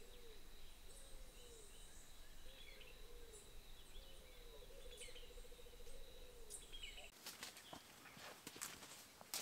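Faint jungle ambience: low calls that rise and fall are repeated every second or so, one running into a rapid trill, over a steady high-pitched whine and scattered high chirps. About seven seconds in, these give way to footsteps crunching through leaf litter.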